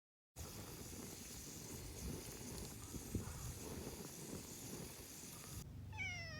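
Steady wind noise with scattered faint clicks, then near the end a cat gives a single meow that falls in pitch.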